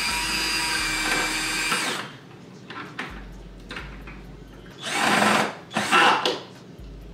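Power drill drilling into the wall: one run of about two seconds with a steady motor whine, then after a pause two short bursts.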